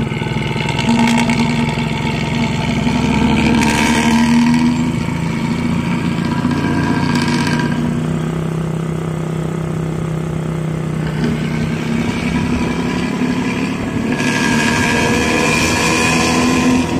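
Bus engine running through its 'ngorok' exhaust, a deep snoring growl. It swells louder about a second in and again near the end.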